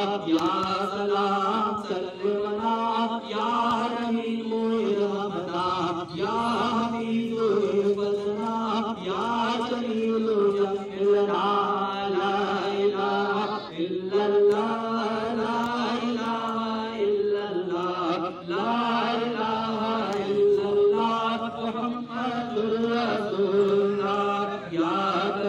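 A man's voice chanting a devotional Urdu milad recitation (naat) into a handheld microphone, in long held, ornamented melodic lines with no instrument.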